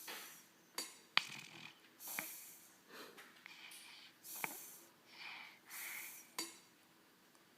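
Soft snoring: short, hissy, wheezy breaths about once a second, with several sharp clicks in between.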